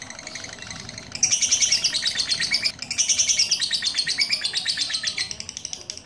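Lovebird chattering: a rapid, high-pitched trill in two long bursts, starting about a second in with a short break near the middle, over fainter steady rapid chirping.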